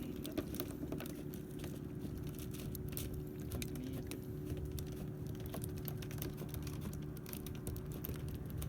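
A steady low drone, typical of a fishing boat's engine running, under a scatter of irregular light clicks and taps.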